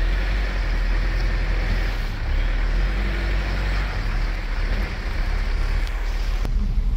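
Mitsubishi 4x4 SUV driving along a dirt track, heard from inside the cabin: a steady low engine rumble under tyre and road noise.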